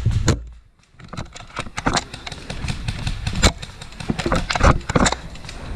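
Irregular crunches and knocks, like footsteps and gear moving through brush and dry leaves, with a low rumble at the start that drops out briefly about half a second in.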